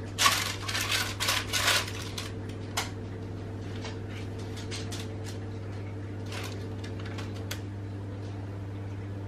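Baking paper rustling and crinkling as it is pressed into a round cake pan, a quick run of crinkles over about the first two seconds, then a low steady hum with only a few faint ticks.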